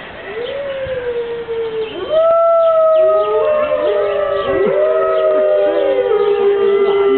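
Pack of Siberian wolves howling in chorus: several long howls overlap, sliding up and down in pitch. A louder howl comes in about two seconds in, holds high, then falls away.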